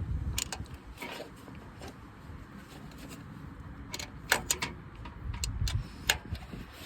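Scattered sharp metallic clicks and clinks, a quick cluster about four seconds in, from hand tools and exhaust hardware being handled, over low handling noise.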